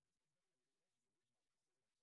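Silence: the sound track is essentially empty.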